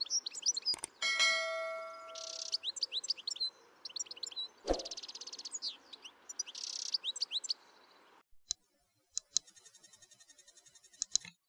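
European goldfinch singing: a fast twittering of high chirps and buzzy trills, with a bell-like ding about a second in. The song stops a little after eight seconds, leaving only a few faint clicks.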